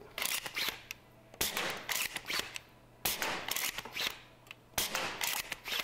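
Talon Claw 4 (T4) foam dart blaster being worked by hand and fired, four bursts of sharp clacks, each a quick cluster of mechanical clicks that fades fast.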